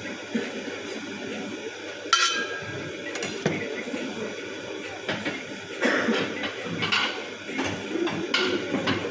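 Kitchen clatter of dishes and utensils: a sharp ringing clink about two seconds in, another a second later, then a run of knocks and clinks in the second half.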